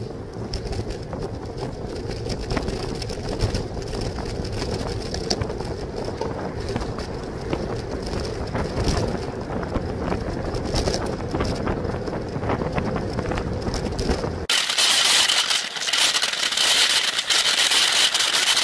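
Steady rushing wind and road noise on a bicycle-mounted camera's microphone while riding. About fourteen seconds in, it changes abruptly to a harsher, hissier rush.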